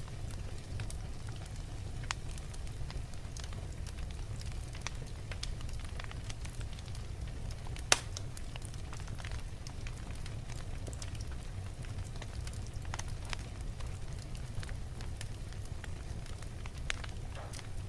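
Wood fire crackling in a fireplace: scattered snaps and pops over a steady low rumble, with one loud pop about eight seconds in.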